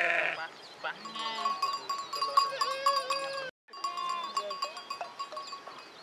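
Flock of sheep bleating, many calls overlapping, with one loud bleat right at the start. The sound drops out briefly about three and a half seconds in, and the bleating is sparser after that.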